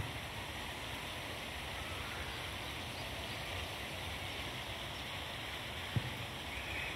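Steady rush of flowing water, with a brief low thump about six seconds in.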